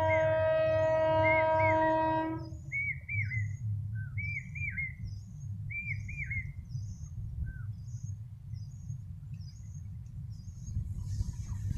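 Electric multiple unit train's horn sounding one long steady note that stops about two and a half seconds in. Birds then call repeatedly: arching chirps and short high chirps, over a low steady rumble, with the approaching train's running noise growing near the end.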